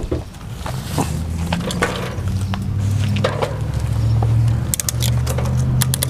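A motor vehicle engine running: a low, steady drone that builds up over the first second or two and then holds. Near the end a scatter of light clicks sounds over it.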